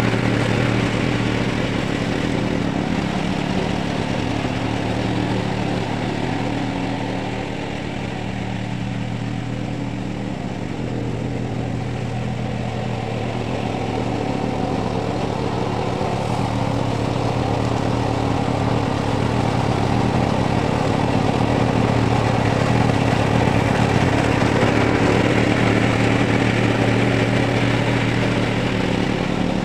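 Ogawa XT600 self-propelled flail mower's 420cc, 15 hp single-cylinder OHV engine running steadily as the mower mulches brush. The sound dips a little partway through and grows louder again as the machine moves away and comes back.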